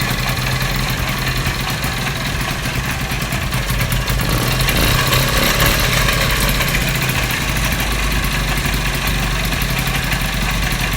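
Vespa 50 Special's small two-stroke single-cylinder engine, freshly rebuilt, idling steadily.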